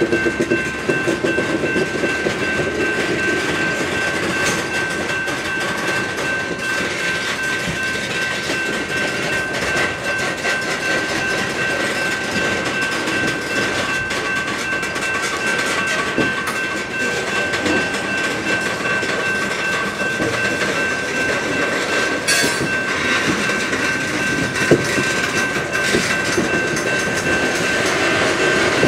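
Loaded coal hopper cars of a freight train rolling steadily past, wheels clicking and rumbling over the rails. A steady high ringing tone runs throughout, which is the grade-crossing bell sounding while the train occupies the crossing.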